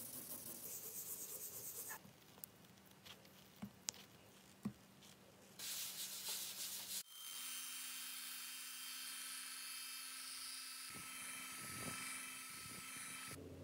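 Cloth and a gloved hand rubbing and wiping over wet and polish-coated car paint, then from about seven seconds in a machine polisher with a foam pad running steadily on the paint.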